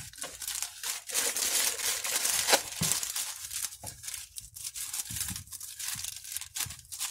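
Plastic courier mailer bag crinkling as it is handled, then scissors cutting through the plastic in a series of short snips in the second half.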